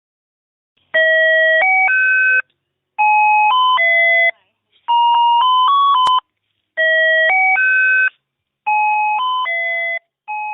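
Meme sound effect of an electronic doorbell-style chime tune: short phrases of bright bell tones stepping up and down, a set of three phrases played and then repeated, with a sharp click about six seconds in.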